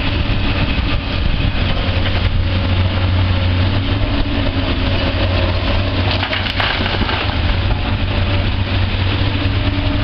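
Diesel engine of a Komatsu PC200 crawler excavator running steadily with a constant low hum and no revving.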